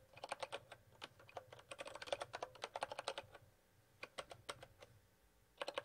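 Typing on a computer keyboard: quick runs of key clicks, broken by two short pauses in the second half.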